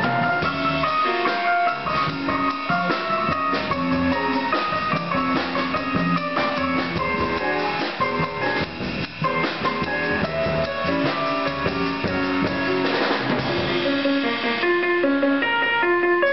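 A jazz trio playing live: an electric keyboard carrying a busy melodic line over a drum kit and an upright double bass. A cymbal wash swells up about three-quarters of the way through.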